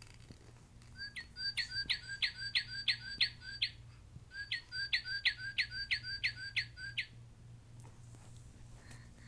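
Recorded northern cardinal song played by a red plush toy bird: two phrases of about nine quick, evenly spaced notes, each note sliding down in pitch, with a short pause between the phrases.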